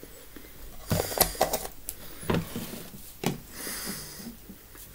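A few sharp clicks and knocks of a knife and lid against a peanut butter jar as it is handled. About three-quarters of the way in there is a short breathy hiss of a man breathing through a chili-burnt mouth.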